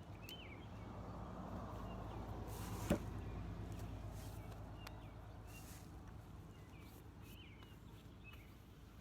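Small birds chirping now and then over a low outdoor rumble that swells and fades, with one sharp click about three seconds in.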